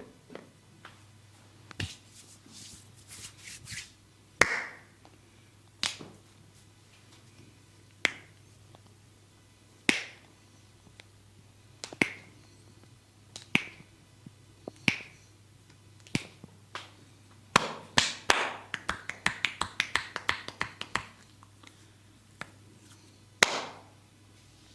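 Sharp snaps and slaps from a barber's hands during a head massage: single cracks about every two seconds, then a quick run of rapid snaps about eighteen seconds in, lasting some three seconds, and one more crack near the end.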